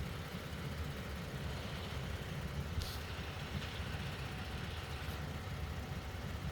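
2019 Toyota Tacoma's 3.5-litre 2GR-FKS V6 idling steadily, with one sharp click about three seconds in. The owner traces the engine's misfire to the number two direct injector.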